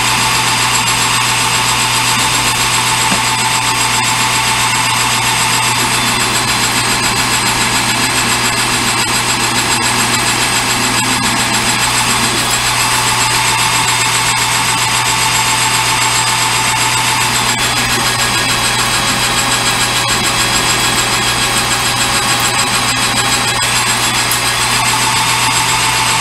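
Metal lathe running steadily while turning a piece of stock, its motor and drive giving a constant hum. A higher whine comes and goes a few times.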